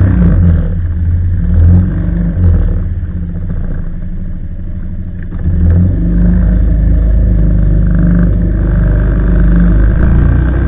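Engine of a small motorboat running under way, a steady low rumble that drops off for a few seconds in the middle and picks up again.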